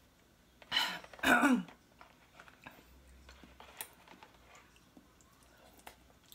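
Ramen noodles slurped from a bowl, two loud slurps close together about a second in, the second with a falling pitch, followed by faint chewing and light clicks of chopsticks against the bowl.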